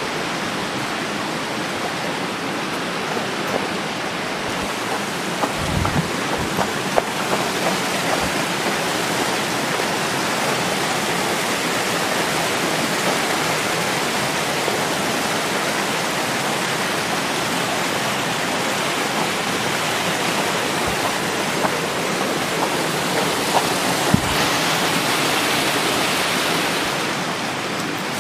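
Steady rushing, hissing noise from the audio of outdoor forest footage, with a few faint knocks around six to eight seconds in and again near twenty-four seconds.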